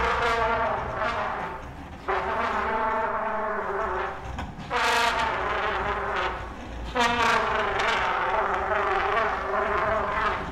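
Trumpet playing four long held notes one after another, each lasting about two seconds with a short break between them.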